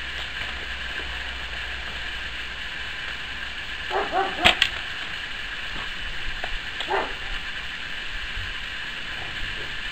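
A .177 Slavia 618 break-barrel air rifle fires once, a single sharp crack about halfway through. A dog barks a few times just before the shot and again a couple of seconds after.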